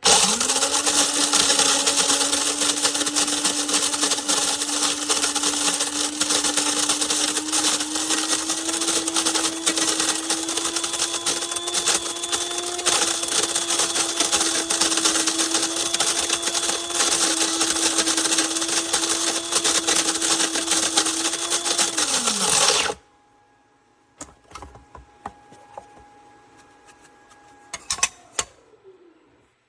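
Cuisinart DBM-8P1 electric burr coffee grinder running a grind cycle, its motor and burrs making a loud, steady whir for about 23 seconds. It then stops on its own timer, the pitch falling as the motor winds down, followed by a few faint clicks.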